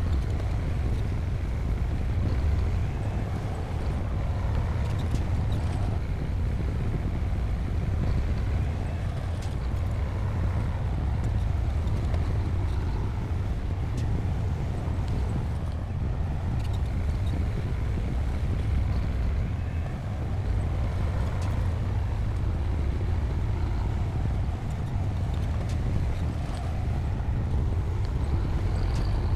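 Bulldozer's heavy diesel engine running steadily at work: a deep, continuous rumble that holds a nearly even level throughout, with a few faint clicks over it.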